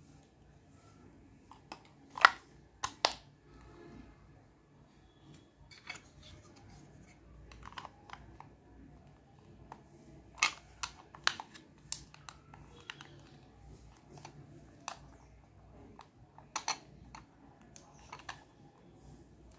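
Sharp, irregular plastic clicks and taps from handling a handheld sound level meter as its battery cover is fitted and snapped shut; the loudest click comes about two seconds in.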